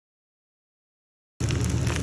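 Silence, then about one and a half seconds in, sound cuts in abruptly: fried rice sizzling in a hot pan as a wooden spatula stirs it, over a steady low hum.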